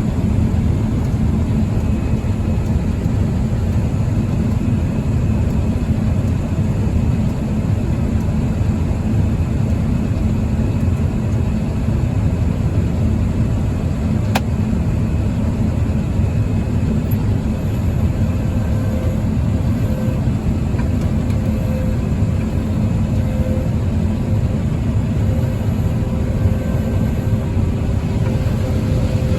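Combine harvester running steadily while picking corn, a constant low machine noise with a faint steady hum. A single sharp click about halfway through.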